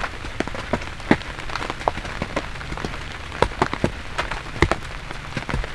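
Steady rain with heavy drops striking a nearby surface in irregular sharp taps, a few of them much louder than the rest.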